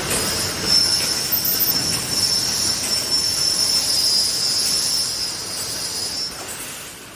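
Machine noise from an automatic 3D fence mesh welding line: a steady high-pitched whine over a hissing din, which stops near the end as the overall level drops.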